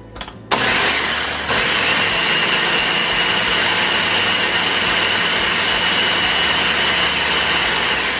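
Ninja countertop blender starting up and running steadily as it purées a liquid dressing, with a steady high whine over the motor noise. It starts about half a second in and gets louder about a second later.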